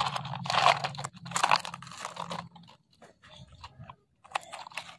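Plastic toy excavator bucket scraping and crunching through loose gravel and small stones, pushed by hand. The crunching is densest in the first couple of seconds, then gives way to a few sparse clicks of stones near the end, over a low hum that fades out partway through.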